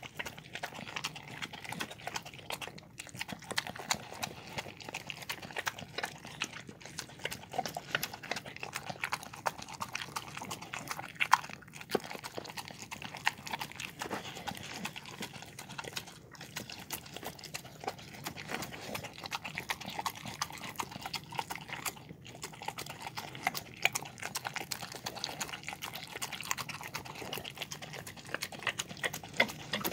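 Dog eating from a bowl: a steady run of quick wet chewing and licking clicks and smacks.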